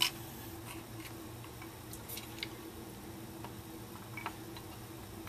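Scattered light clicks and taps as a small tinplate live-steam model locomotive and its parts are handled on a bench: a sharper click at the start, a few more about two seconds in and one past four seconds, over a steady low hum.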